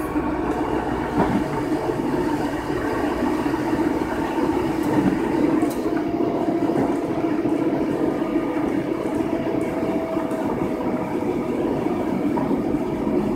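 Steady running noise inside a CP 592.0 diesel multiple unit in motion: an even hum of the MAN D2866 diesel engines mixed with wheel and rail rumble.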